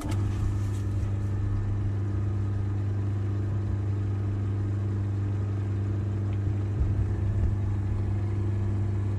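Metal lathe switched on, its electric motor and spinning chuck starting at once and then running at a steady speed with an even hum. The chuck is running true, no longer wobbling, after its run-out was corrected.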